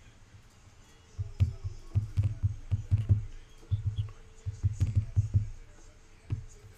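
Irregular soft thumps and clicks of trading-card packs and cards being handled on a table.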